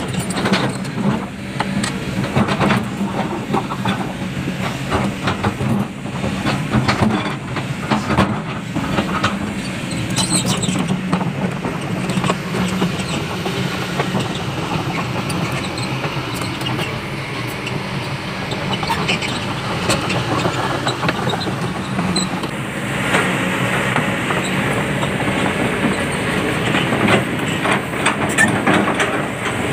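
Crawler excavator working close by: a steady engine drone with many short metallic clanks and rattles from its steel tracks and bucket among the limestone rocks.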